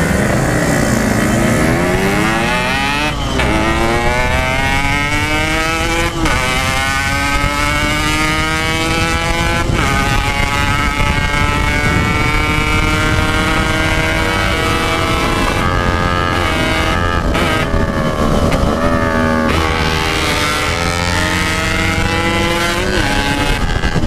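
Yamaha RX-King 135cc two-stroke single with a Packing Power exhaust accelerating hard: the engine note climbs, drops at each upshift about 3, 6 and 10 seconds in, then holds at high revs with a few brief dips. Wind rushes steadily over the microphone throughout.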